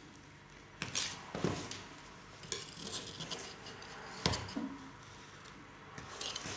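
Kaiser Shake & Bake metal baking form knocking and clinking against the worktop as it is handled, about five separate knocks, the loudest a little over four seconds in.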